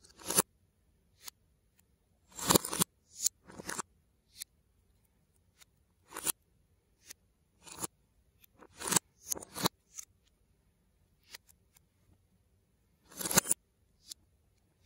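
LEGO bricks and plates handled by hand, picked from a loose pile and snapped together: irregular sharp plastic clicks and short clattering clusters, with quiet gaps of a second or two between them.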